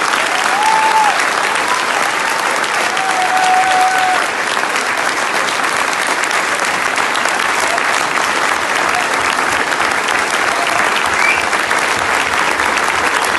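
Large audience applauding steadily, with a few voices calling out over the clapping in the first few seconds.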